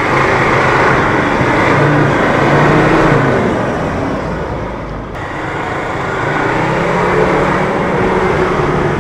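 Land Rover Discovery II engine working hard under load, pulling the 4x4 up a steep muddy climb. The engine note climbs over the first few seconds, eases off about five seconds in, then builds again.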